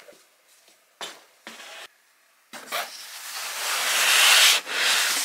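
Cardboard shipping box being handled and opened: two short scrapes about a second in, then a longer scraping rustle of cardboard that grows louder over the second half.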